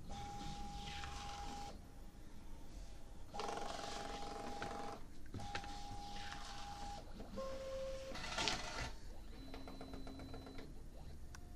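MAX CPM-200 label printer running its cutting pass: motors whirring in stretches of a second or two with short pauses between, each with a steady whine, the whine lower in pitch in the last stretches.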